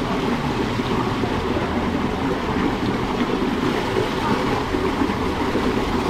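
Water rushing steadily down the start of a speed slide, a loud, even rush.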